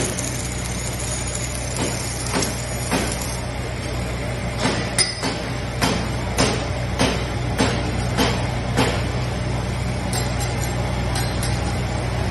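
Metal fabrication workshop noise: a steady machine hum, with a run of sharp knocks about every half-second in the middle.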